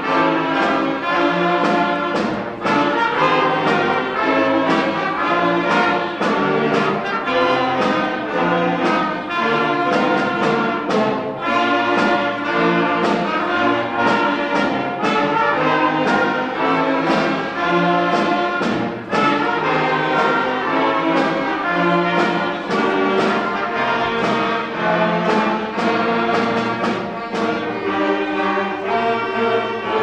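Middle school wind band playing: clarinets, saxophones, trumpets and low brass sounding sustained chords together, with sharp percussion strokes marking a steady beat.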